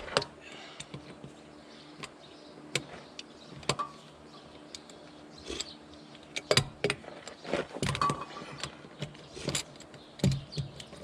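Irregular metallic clicks and clanks of a wrench working the wheel nuts on a tractor wheel as they are tightened, busier and louder in the second half.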